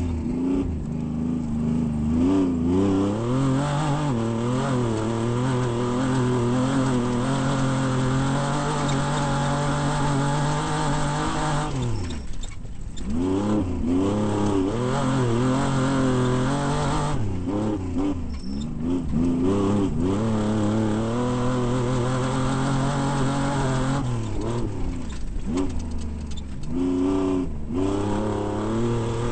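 Off-road race vehicle's engine run hard at steady high revs, its pitch dropping sharply and climbing back several times as the throttle is lifted and reapplied, the first time about twelve seconds in and again a few times later.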